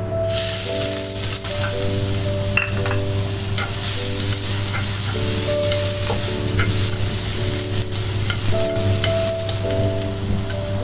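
Chopped garlic dropped into hot oil in a wok and sizzling hard, the hiss starting suddenly right after it goes in and holding steady, with a few light taps.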